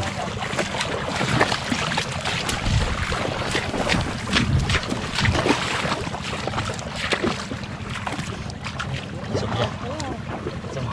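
Shallow muddy pond water sloshing and splashing irregularly as people wade and grope through it by hand, with wind rumbling on the microphone.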